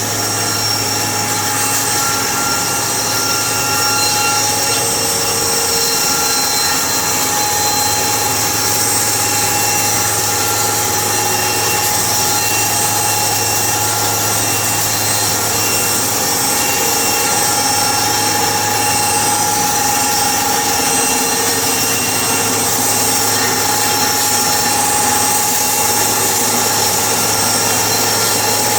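Sawmill machinery running steadily: a loud, even machine noise with a constant whine and hum that does not change.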